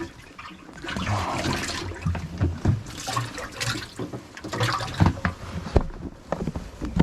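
Water splashing and sloshing in a boat's live well in irregular bursts as crappie are handled during culling, with a few sharp knocks against the boat.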